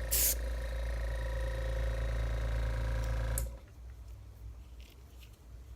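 Small airbrush compressor running with a steady hum, then shutting off about three and a half seconds in. A brief hiss of airbrush spray right at the start.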